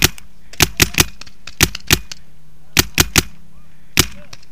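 Paintball marker firing in quick bursts of two or three shots, about ten sharp pops in all with short pauses between the bursts.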